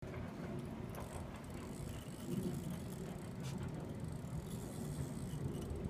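Fishing reel being cranked steadily, its gears giving off a continuous fine rattling tick while a heavy fish is reeled in.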